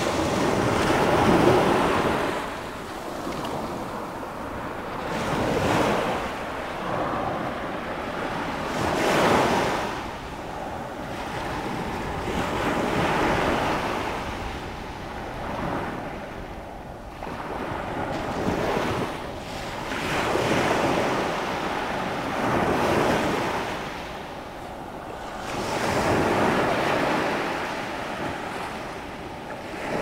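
Black Sea surf breaking and washing up a sandy shore, the rush of water swelling and fading with each wave every few seconds.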